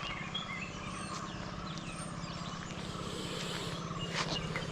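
Birds chirping over a steady, low, rapidly pulsing mechanical hum.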